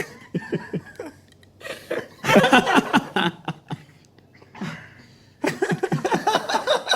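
Human laughter in bursts of quick pulsing laughs and chuckles, loudest about two and a half seconds in and again in the last second and a half, with a short lull between.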